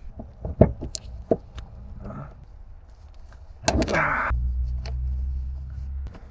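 Scattered light clicks and knocks of hand work on fuel pump fittings and hoses, then a short loud burst of noise about two thirds of the way in, followed by a steady low hum for about two seconds.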